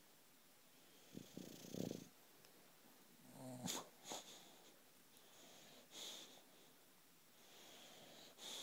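British bulldog snoring in her sleep: a few rough snores, the loudest between one and two seconds in, with hissing breaths between.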